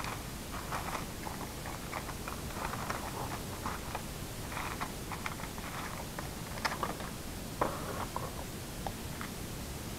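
Small gold-plated electronic scrap (transistor legs, connector pins and bits of circuit board) clicking and rattling in a plastic tub as a hand stirs through it. A few sharper clicks come about two-thirds of the way through.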